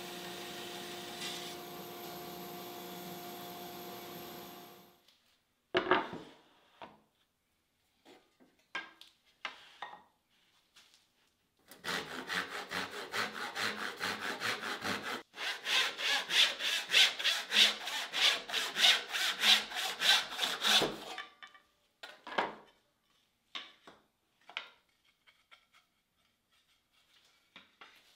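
A backsaw crosscutting a black walnut board by hand, in quick regular rasping strokes of about two or three a second that get louder as the cut goes on. Before that a band saw runs with a steady hum and shuts off about five seconds in, and scattered knocks and taps of wood and tools on the bench come between and after.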